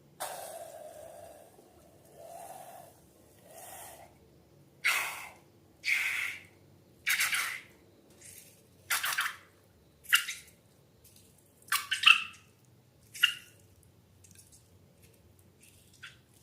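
Slime squelching in about a dozen separate wet squishes and pops, a few of them with a short squeaky edge.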